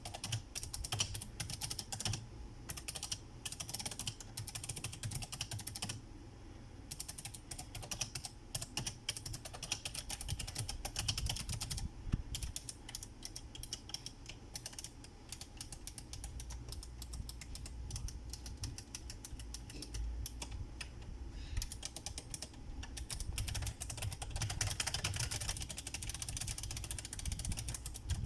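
Typing on a Razer Ornata Chroma mecha-membrane keyboard: a fast, steady run of clicky keystrokes. There is a short pause about six seconds in, and the typing gets denser and louder near the end.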